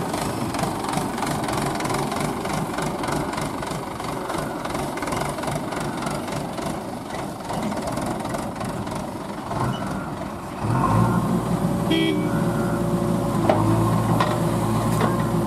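Diesel engines of a Mahindra 475 DI tractor and a JCB backhoe loader running, with a rough clattering beat. About ten seconds in, the sound changes suddenly to a louder, steadier low drone of the backhoe's engine.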